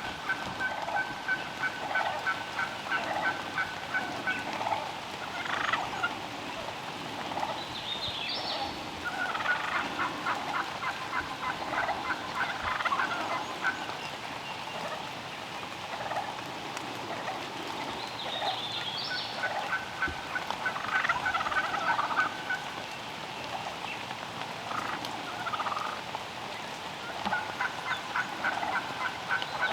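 Wild turkeys calling: gobbles and runs of short, evenly spaced yelp-like notes, the pattern coming round about every ten seconds.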